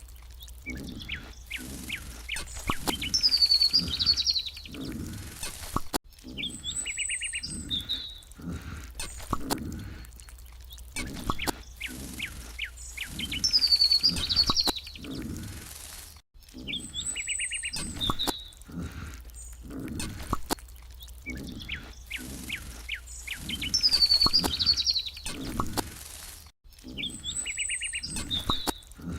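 Birdsong ambience: a short chirping bird phrase followed by a quick trill and a high whistle, repeating about every ten seconds as a loop, with soft low thuds in between.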